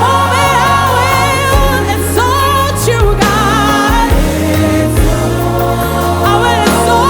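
Live gospel worship music: lead and backing vocals singing with vibrato over keys, bass and drums, with no words caught by the transcript.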